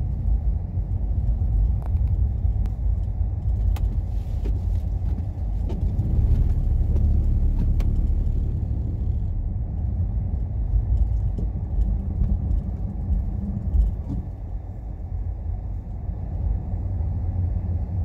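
Steady low road rumble heard inside a rear-wheel-drive Dodge's cabin while driving on a snow-covered road, from the tyres and drivetrain. A few faint clicks and rattles sound here and there.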